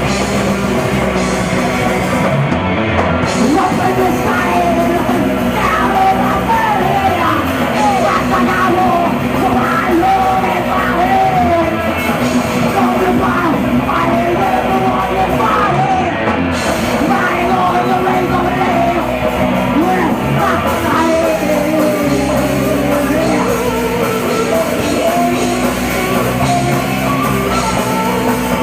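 Live heavy metal band playing loudly, with distorted electric guitars and drum kit under yelled vocals that come in about four seconds in.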